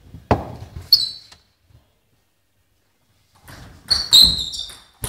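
Table tennis ball clicking off bats and the table with short high pings, a couple of strokes about a second in, then a quick run of hits near the end. Duller thuds sound among the strokes.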